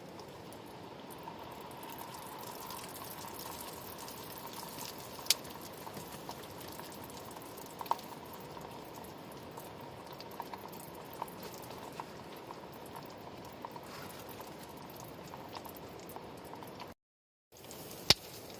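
Breaded pork deep-frying in a pot of hot oil: a steady sizzle with occasional sharp pops. The sound cuts out briefly near the end.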